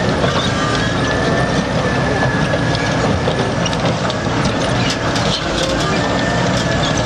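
Elevating scraper running, with continuous metallic rattling and clanking over a low engine rumble and a steady high whine.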